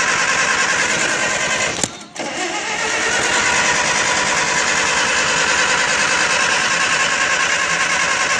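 An engine being cranked by its starter motor in fast, even pulses without catching, in keeping with an engine that won't start. The cranking cuts out with a click about two seconds in and starts again a moment later.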